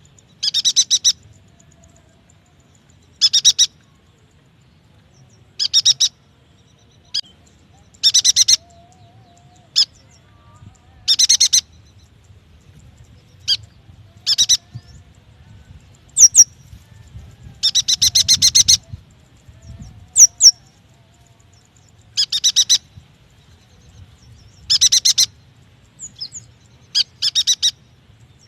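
Yuhina singing: short, rapid, buzzy chattering trills, each about half a second long, repeated every two to three seconds. A few single sharp, high notes fall in between.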